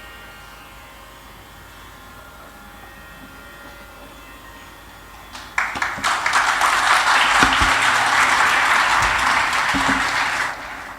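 The last veena notes ring out faintly and die away, then about halfway through an audience breaks into applause for about five seconds, ending shortly before the close.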